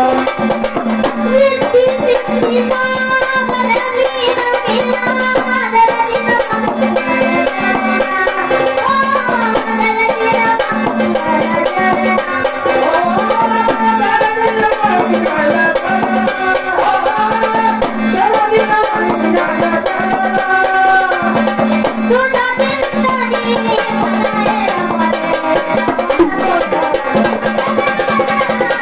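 A child's high voice singing a Marathi jagran-gondhal folk song, with folk percussion and a steady held note underneath.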